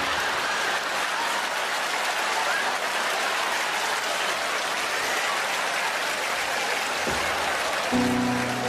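Audience applauding steadily. Near the end, a grand piano starts playing with a sustained chord.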